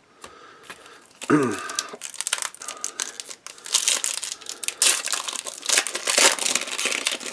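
Plastic wrapper of a 2016 Topps Holiday trading-card pack being torn open and crinkled by hand, a dense crackling that grows louder in the second half.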